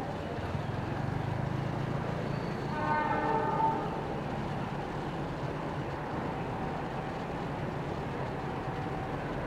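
A horn from a train still out of sight sounds once for about a second, about three seconds in, over a steady low rumble.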